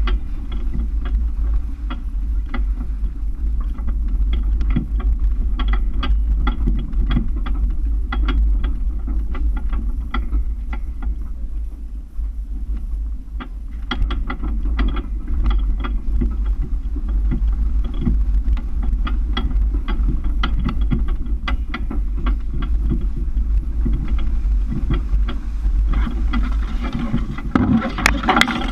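Toyota FJ Cruiser crawling over a rocky dirt trail, heard through a hood-mounted GoPro as a muffled, steady low rumble of engine and running gear, with frequent clicks and knocks as rocks and bumps jolt the truck. A louder burst of noise comes near the end.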